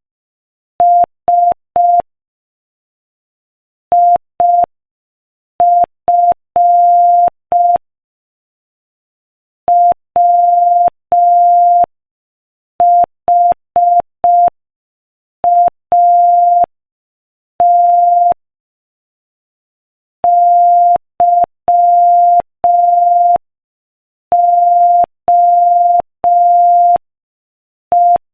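Morse code sent at 5 words per minute: a single steady beep keyed on and off in dots and dashes, a faint click at each start and stop, with pauses of one to two seconds between letters.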